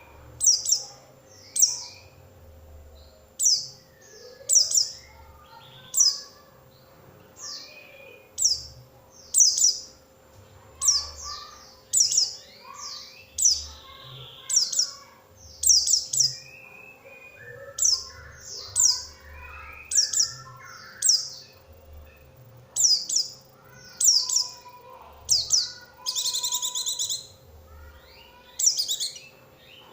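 White-eye (pleci) singing: loud, high chirps that slide downward, repeated about once a second, with quieter twittering notes in between. A longer buzzy trill comes a few seconds before the end.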